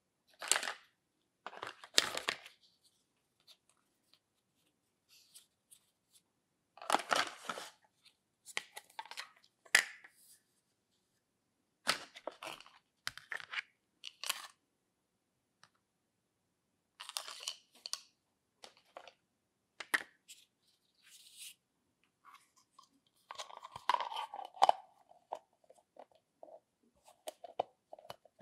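Hard plastic toy cookware being handled: pieces knocked, scraped and set down, in short irregular bursts of clicks and rustling with pauses between.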